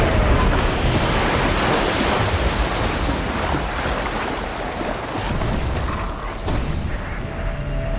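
Ocean surf on a beach: a wave breaks loudly as the sound begins and the water rushes and washes on, easing off slowly.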